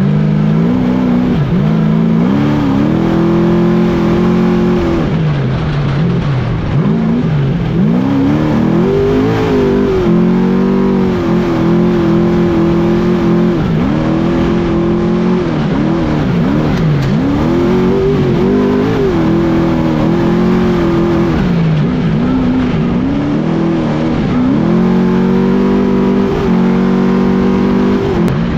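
Trophy truck's race engine at high speed on a dirt course, heard from the hood: it revs up again and again, rising in pitch and dropping back as the driver accelerates, lifts and shifts.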